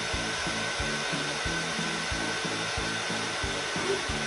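Hair dryer blowing steadily, a rushing noise with a thin high whine. Under it, background music with a regular beat of about three a second.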